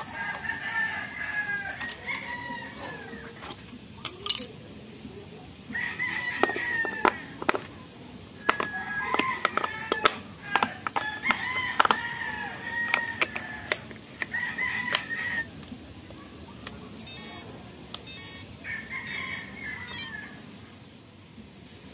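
Chickens calling, with a rooster crowing in several long calls. Sharp plastic clicks mix in as AA batteries are fitted into the FlySky FS-i6X transmitter's battery compartment.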